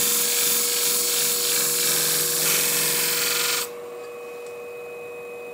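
A hair-shear blade edge being ground against the spinning 800-grit hone plate of a Scimech Flathone sharpening machine, an even grinding hiss from the slight rocking pass that blends an old bevel angle into a new one. The grinding stops suddenly a little over halfway through as the blade is lifted off, leaving the machine's steady motor hum.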